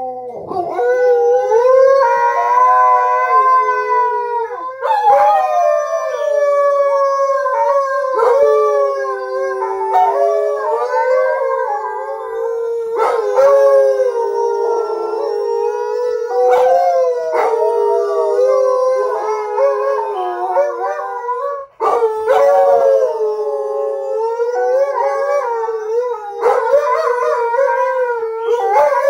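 Several Alaskan malamutes howling together in a chorus of long, overlapping, wavering howls, with one very short break about two-thirds of the way through.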